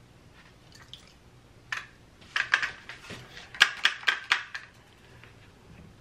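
Small hard clicks and rattles of something loose inside a DJI Mavic Pro drone's body as it is turned over in the hand, an irregular string of ticks lasting about three seconds. The owner is unsure whether it is grains of rice that got inside or a part broken in the crash.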